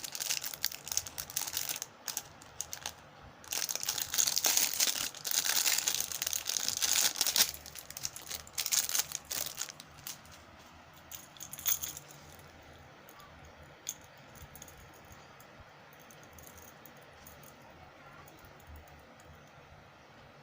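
Plastic packaging crinkling and tearing as it is handled and opened, in repeated stretches for about half the time. Then a couple of small clicks and faint room tone.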